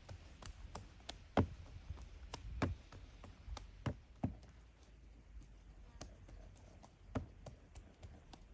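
Irregular light taps and knocks, about one or two a second, from hands patting and working flatbread dough on a tray.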